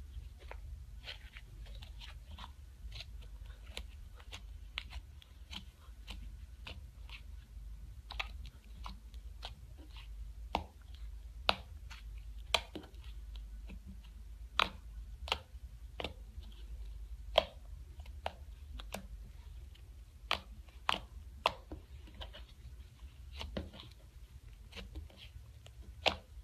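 Thick red slime squeezed, pressed and folded by hand, giving off irregular sharp clicks and pops, a few of them noticeably louder. A low steady hum runs underneath.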